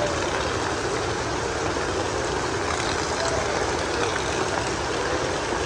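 Heavy rain falling, a steady, even hiss of water.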